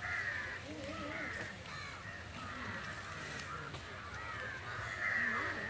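Crows cawing repeatedly, with the loudest calls near the end.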